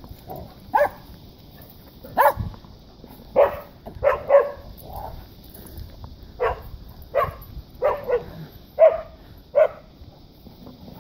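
Dog barking in about ten short, sharp single barks at uneven intervals: play barking while chasing another dog in the snow.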